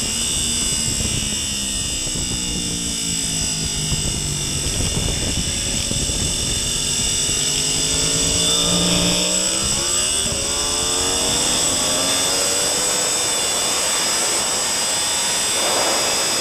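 Onboard sound of a sport motorcycle engine on a race track, heard through heavy wind rush. The engine pulls out of a slow second-gear corner and accelerates hard, its pitch rising and dropping back at the gear changes.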